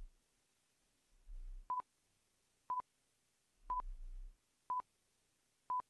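Quiz countdown timer beeping: five short beeps at the same pitch, one each second.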